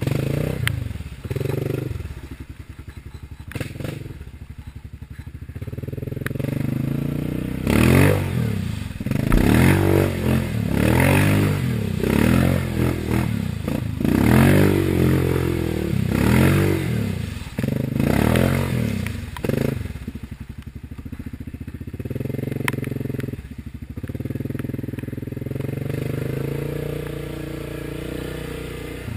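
Yamaha Grizzly ATV engine under load while wading through deep muddy water. The revs rise and fall over and over for about twelve seconds in the middle as the throttle works through the deep side of a rut, then settle to a steadier run.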